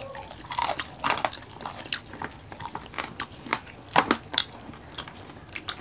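A person chewing and crunching crispy fried food, with irregular short crunches and mouth clicks.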